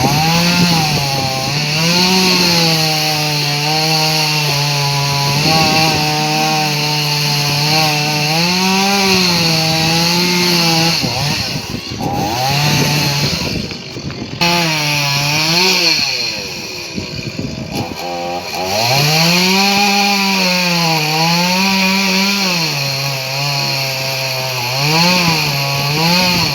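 Chainsaw engine running at high revs while cutting a large tree, its pitch rising and falling again and again as the chain works through the wood. It eases off briefly about twelve and fourteen seconds in, and for a couple of seconds around seventeen seconds in, then picks back up.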